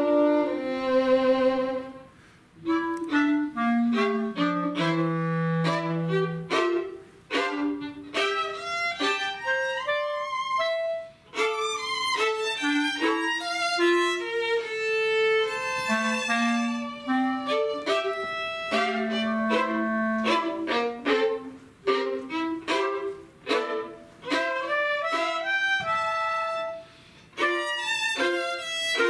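Live chamber music for violin, a second bowed string instrument and clarinet: a busy line of short, detached notes, broken by a few brief pauses.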